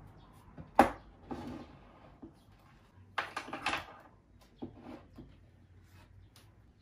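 Wooden serving tray set down on a painted wooden side table with a sharp knock about a second in, then a short clatter of wooden utensils and tableware being arranged on it a few seconds later, followed by a few lighter taps.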